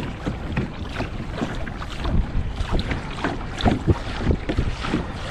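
Wind buffeting the camera microphone on a moving kayak, with irregular splashing of water around the hull.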